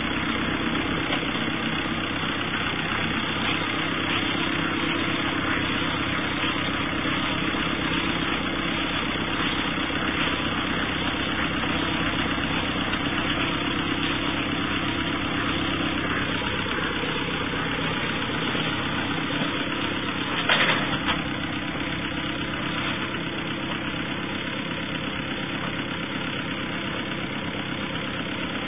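Tractor engine running steadily as it powers a bale wrapper, with a single sharp clack about twenty seconds in.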